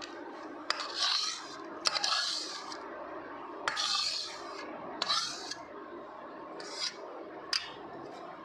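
Flat steel spatula scraping roasted besan-and-ghee paste out of a metal kadhai into a steel plate. It makes a series of short rasping scrapes, about six strokes, with a few sharp clicks of metal on metal.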